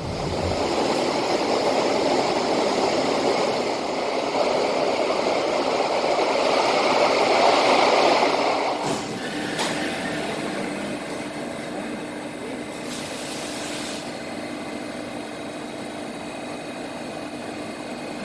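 Steady road and wind noise from a moving vehicle, building up over the first eight seconds. After a cut about nine seconds in, the quieter steady hum inside a Singapore MRT train standing at a station, with a brief hiss a few seconds later.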